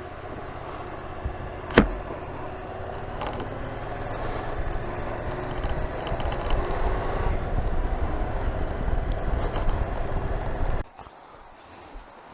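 Yamaha Tracer 700's parallel-twin engine running, growing louder from about four seconds in, with a single sharp click about two seconds in. The sound drops away suddenly near the end.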